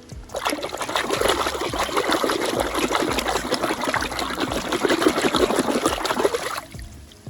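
Water running and splattering onto plastic toy vehicles as they are rinsed clean. It starts just after the beginning, holds steady for about six seconds and stops shortly before the end.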